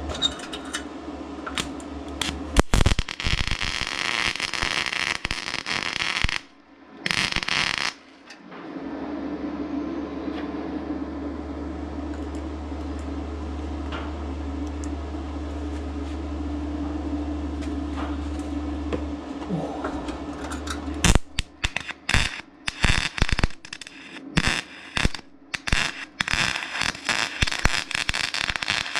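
CO2 gas-shielded MIG welding on thin sheet steel with a 5-in-1 multi-process welder: the arc crackles and sizzles. There are short runs at first, a long continuous run in the middle with a steady hum under it, then rapid stop-start bursts of tacking near the end.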